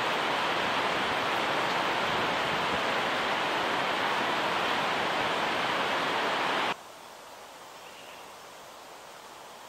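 Steady rushing of a mountain river. About two-thirds of the way through it cuts off suddenly to a much quieter forest background with a couple of faint high chirps.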